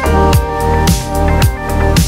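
Background music with a steady beat, a deep bass note sliding down in pitch about twice a second under sustained notes.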